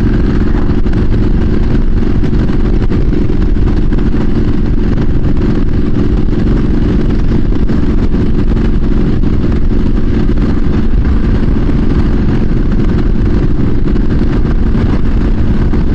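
Wind noise buffeting a helmet microphone on a Triumph SS900 motorcycle riding at a steady speed, with the engine's steady note underneath.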